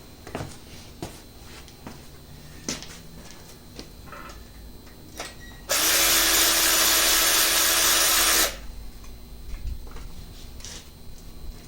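A handheld power tool runs steadily for about three seconds, starting a little before halfway through, between scattered light clicks and knocks of metal engine parts being handled.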